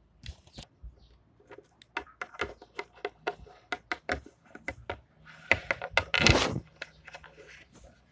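Small plastic toys being handled and set down on a hard wood-grain surface: a run of light clicks and taps, with a louder scraping rustle about six seconds in.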